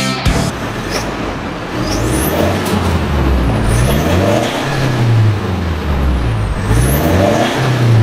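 Mitsubishi Pajero Sport's 2.4-litre turbo-diesel engine running through its full aftermarket 'quiet-formula' exhaust system, revved up and down several times from idle.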